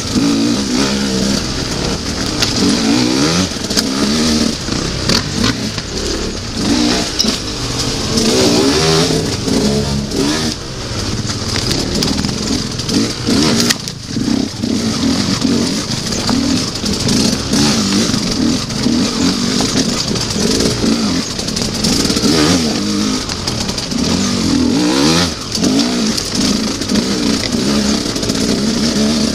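Enduro dirt bike engine heard from on board the bike, revving up and down again and again as it is ridden over a rocky trail. The throttle drops off briefly about halfway through and again later.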